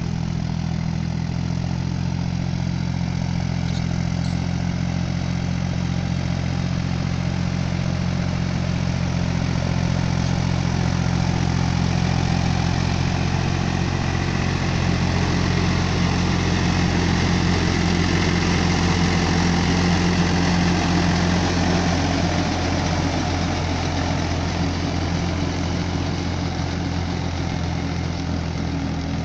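Powertrac Euro 45 Plus 4×4 tractor's diesel engine running steadily under load while pulling a rotary tiller through wet paddy soil. It grows louder through the middle as the tractor passes close, then eases off near the end.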